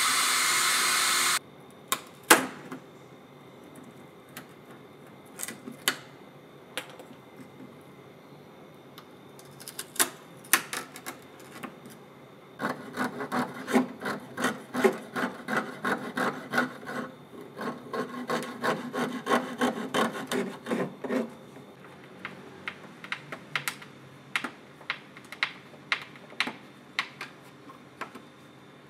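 A Makita cordless drill runs for about two seconds at the start. After a few knocks, a thin-bladed hand saw cuts wood in two runs of quick strokes, about three a second, with a short break between. Scattered clicks and taps of handling follow.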